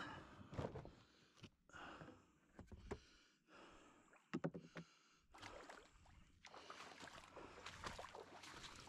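Faint, scattered knocks and rustling of gear being handled and loaded into a wooden canoe, with a quick cluster of clunks about halfway through.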